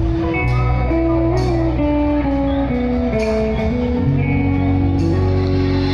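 Live band music: a guitar melody stepping downward note by note over held bass notes, with drums and cymbal hits.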